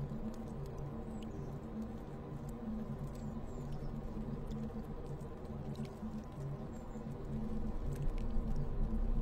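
Dark ambient drone of low, pitched tones that swell and fade about once a second, with faint scattered clicks and a few brief high chirping squeaks layered over it. A low rumble builds and grows louder near the end.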